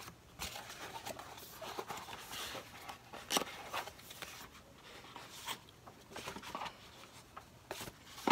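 Small cardboard boxes being handled and moved: light rustling, scraping and small knocks, with a sharper tap about three and a half seconds in.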